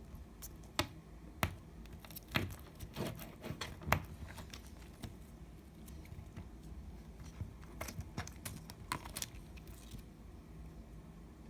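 Slime being played with by hand, giving irregular sharp sticky clicks and pops. They come in a flurry about two to four seconds in and again around eight to nine seconds.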